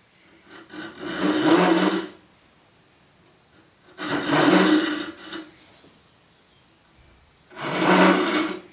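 A Hishiki Japanese rip saw cutting down the pins of a dovetail in an oak board: three spells of sawing, each about a second long, a few seconds apart.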